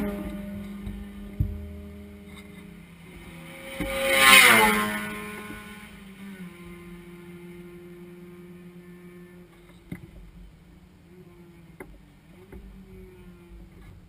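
Vehicle engines running low and steady, heard from inside a race car's cabin, with a louder vehicle sweeping past about four seconds in, its pitch dropping as it goes by. A few light clicks near the end.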